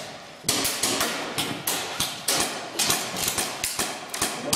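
Airsoft guns firing a rapid, irregular string of sharp shots, about three a second, echoing in a large hall.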